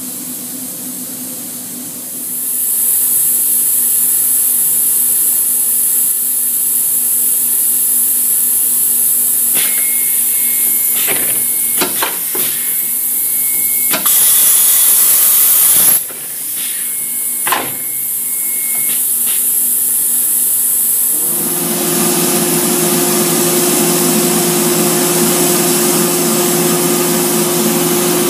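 Northwood CNC router machinery running. A high hiss sets in about two seconds in, broken by clicks and a loud two-second rush of air near the middle. About three-quarters of the way through the hiss stops, and a lower steady machine hum carries on.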